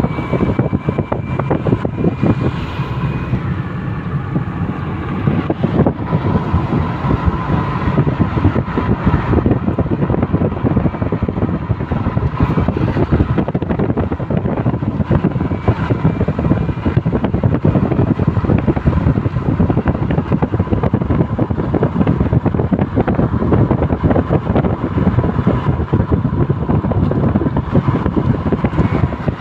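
A moving car's steady road and engine noise, with wind rushing over the microphone at the car's side window and a faint steady whistle running through it.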